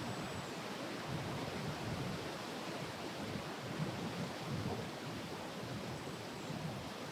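Gusty wind rushing steadily, with low buffeting on the microphone that comes and goes.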